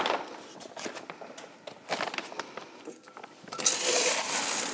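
Light rustling and clicks of plastic bags being handled, then about three and a half seconds in a louder rush of dry green coffee beans being scooped from a plastic GrainPro liner with a metal bowl, the plastic crinkling along with the beans.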